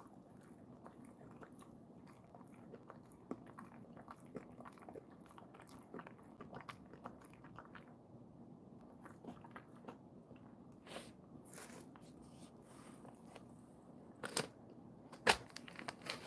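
A dog chewing and crunching a treat: faint, irregular small clicks of its teeth and jaw. Near the end come a few louder sharp cracks.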